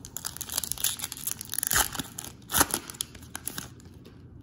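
Foil wrapper of a 2020 Bowman baseball card pack being torn open and crinkled by hand, with a couple of louder rips in the middle. The sound dies away shortly before the end.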